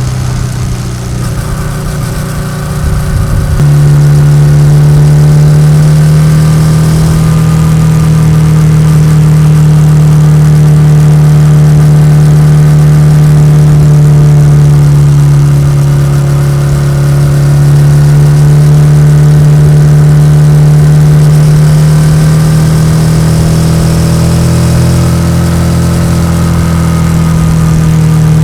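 Yamaha XSR700's parallel-twin engine through an SC-Project aftermarket exhaust, running loud. It is uneven for the first few seconds, then settles into a steady drone at nearly constant revs, its pitch drifting only slightly.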